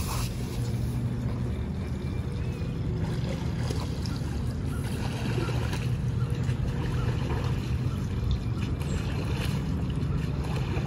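Steady low hum of a motor running.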